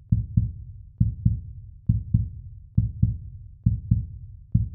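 A steady pulse of paired low thumps in a lub-dub heartbeat rhythm, one pair a little under every second, laid on as a soundtrack beat.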